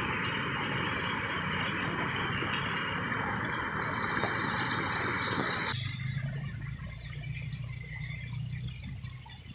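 Muddy floodwater rushing over rocks in an overflowing ditch: a steady, loud rush of water. It cuts off abruptly about six seconds in, leaving a quieter flow of water with a low hum.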